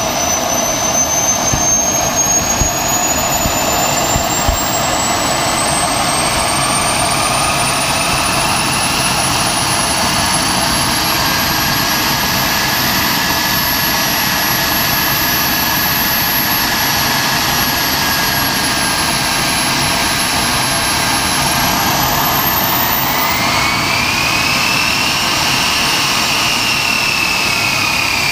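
Wren 44 model turboprop turbine running on a ground test at low throttle, no more than about a quarter. Its high whine climbs slowly in pitch over the first ten seconds and then holds steady. Near the end it rises and falls again as the throttle is moved, over a steady rushing noise.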